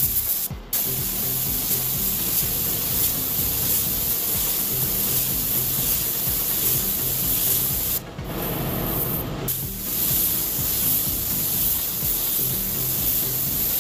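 Gravity-feed paint spray gun hissing steadily as it sprays a coat onto a car hood, with brief breaks where the trigger is let off, about half a second in and again around eight and nine and a half seconds.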